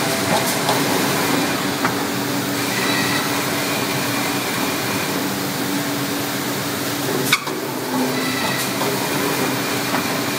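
QFM 460B machine running with a steady whir and hum, faint high tones coming and going; a single sharp click about seven seconds in.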